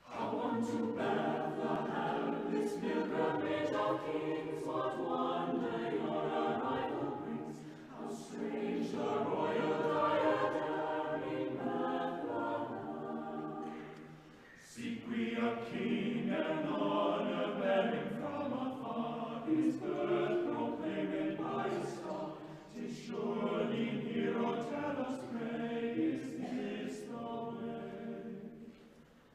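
Mixed choir singing unaccompanied, in sustained phrases with short breaks between them about 8, 14 and 22 seconds in.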